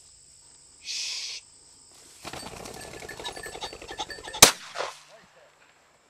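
A pheasant flushing with a rapid clatter of wingbeats for about two seconds, then a single sharp shotgun shot, the loudest sound, about four and a half seconds in.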